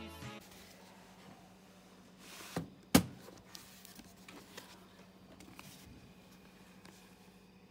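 A library book being handled on a desk: a rustle and a small knock, then one sharp thud about three seconds in as the book is set down, followed by a few faint taps of handling over a steady low hum.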